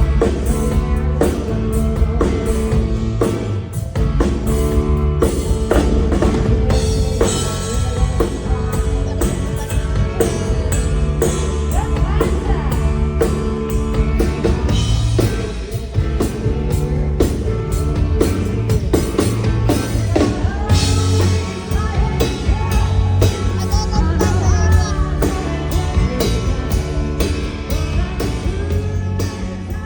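A full pop-country band playing live, with a drum kit keeping a steady beat under the instruments. The sound starts to die away right at the end.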